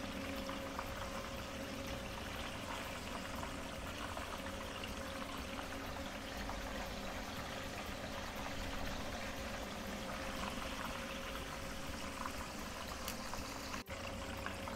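Breaded chicken drumsticks deep-frying in hot oil in a pan: a steady sizzle of bubbling oil.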